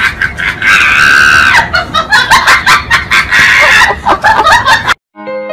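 A person screaming and laughing loudly in rapid short bursts, with two longer held shrieks. About five seconds in it cuts off abruptly, and soft keyboard notes begin.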